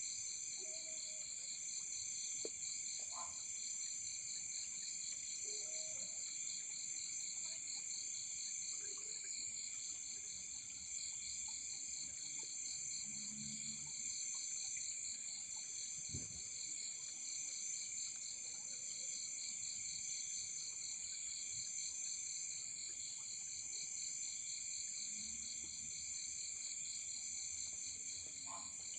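Night chorus of crickets and other insects: several steady, high-pitched trills at different pitches, one of them a fast even pulsing, with a few faint, scattered low sounds beneath.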